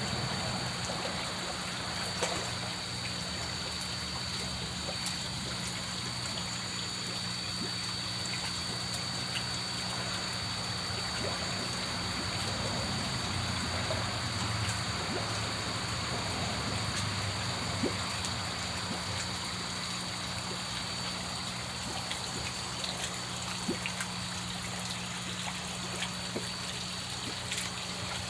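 Water trickling steadily, with a low electrical hum and a faint high whine beneath it, and a few small ticks.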